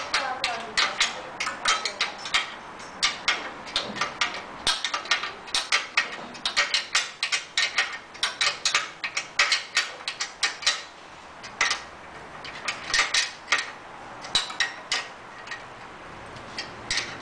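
Rapid, irregular metallic clicking of a hand wrench working a nut and bolt tight on the front wheel and fender hardware. The clicks come several a second at first and thin out to scattered ones after about eleven seconds.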